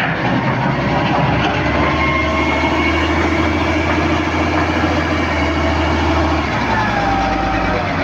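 XCMG ZL50GN wheel loader's diesel engine running hard as the machine drives, a steady low drone that eases off about six and a half seconds in.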